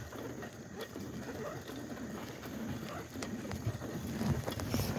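Bicycle with nearly flat tyres rolling on asphalt, heard through a handheld phone: a steady low rumble of tyres and wind with scattered faint clicks and rattles.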